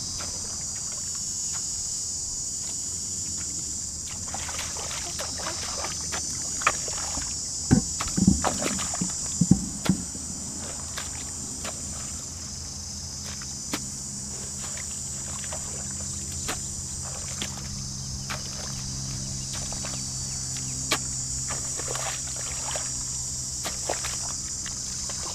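Steady high chirring of insects, with a low hum underneath. Over it come scattered knocks and thuds of a hoe chopping into wet mud and shallow water, the heaviest a cluster of strikes about eight to ten seconds in.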